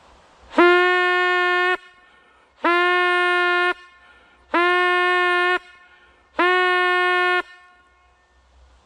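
Brass hunting horn blown in four long, even notes on one pitch, each lasting about a second, with short pauses between them.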